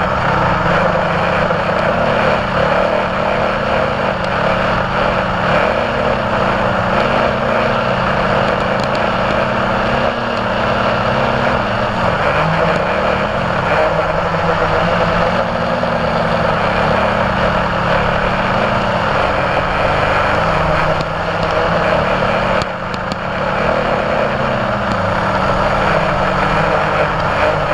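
Multirotor drone's motors and propellers running steadily with a loud buzz, the pitch wavering slightly as the craft holds and shifts position; a brief dip about three-quarters of the way through.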